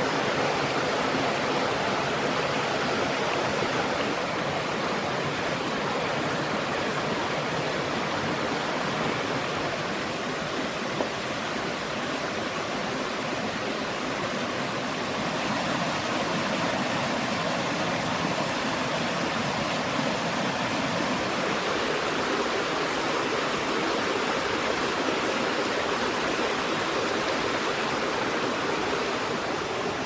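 Steady rushing of a rocky forest stream and a small waterfall.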